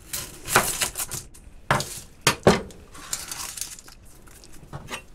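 A chef's knife cutting an onion on a plastic chopping board: several sharp knocks of the blade on the board in the first two and a half seconds. Then the dry, papery onion skin rustles as it is peeled off by hand.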